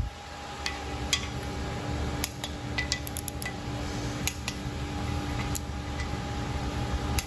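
Scattered light metallic clicks and clinks, with a quick cluster about three seconds in, from a torque wrench and ratchet working the main bearing cap bolts on a cast-iron LS engine block.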